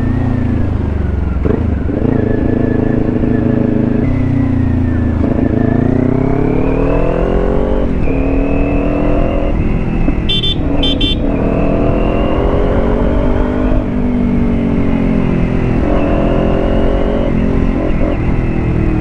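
Kawasaki Ninja 400's parallel-twin engine running on the move, its pitch rising and falling with the throttle, over a low wind rumble. Two short high beeps about ten seconds in.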